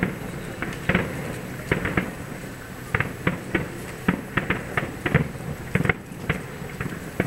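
Aerial fireworks shells bursting at a distance: an irregular run of sharp bangs and cracks, several a second.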